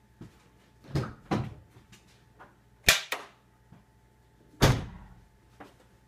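A few knocks and thuds, and a sharp metallic click about three seconds in: the newly installed hood latch of a Mercedes-Benz W163 ML500 springing open as the hood release lever in the cabin is pulled.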